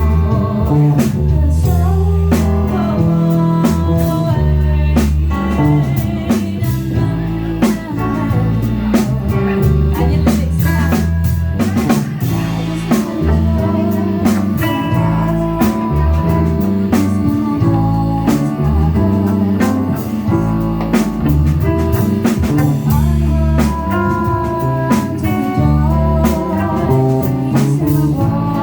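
Live band playing a blues number: drum kit, guitar and organ over a heavy, moving bass line, with regular drum hits.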